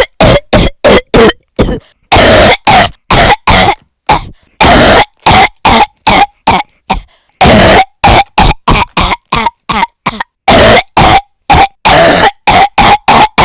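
A person with a cold coughing over and over: a rapid string of loud, short coughs, about two a second, with a few longer coughs among them, some with a squeaky pitched edge.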